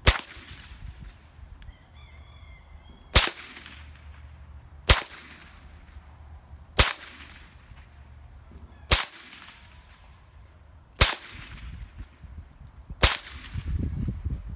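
Seven single shots from a Remington 597 semi-automatic .22 LR rifle, fired one at a time about every two seconds, each a sharp crack with a short fading echo.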